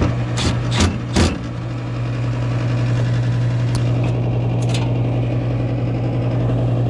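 Gas furnace running with a steady motor hum. Three quick knocks sound in the first second and a half, and a couple of faint ticks come near the middle.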